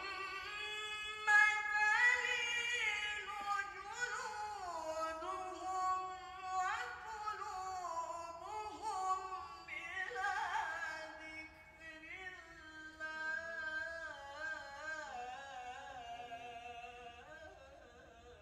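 A man's voice reciting the Quran in the melodic tilawah style through a microphone, in long held phrases with wavering ornaments and pitch slides, trailing off near the end.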